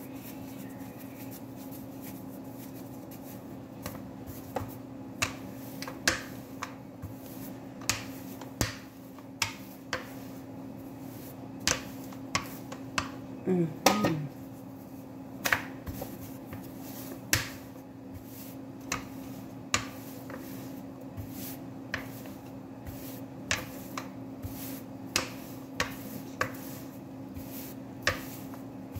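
Pizza dough being pressed out by hand and rolled flat with a plastic rolling pin on a plastic-sheeted counter: irregular sharp taps and knocks, roughly one a second, over a steady low hum. A brief squeaky sliding sound comes near the middle.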